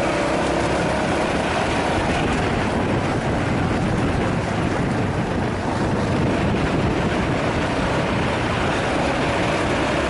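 Yamaha Serow 250's air-cooled single-cylinder engine running at an even, steady speed while the motorcycle rides along a gravel track. It is heard through a helmet-mounted camera, with a steady rush of noise behind it.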